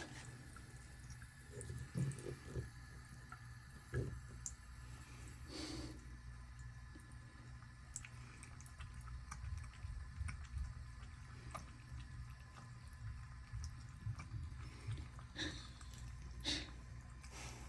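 Faint trickle of running water with occasional drips and small splashes, over a steady low hum.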